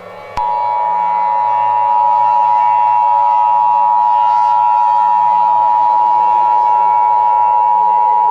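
Emergency Alert System attention signal: a steady two-tone alert at 853 and 960 Hz, starting about half a second in and holding without change, over a faint low drone.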